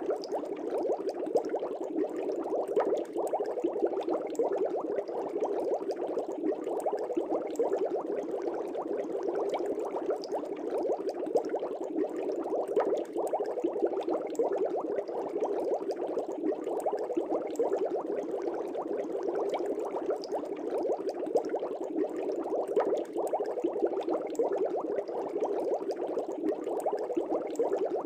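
Air bubbles streaming up through aquarium water, a steady, dense bubbling with many small pops.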